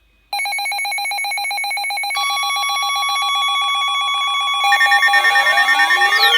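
Electronic alert tones: a rapidly pulsing ringing tone starts suddenly, more steady tones layer on about two and four and a half seconds in, and sliding tones rise and fall across them near the end.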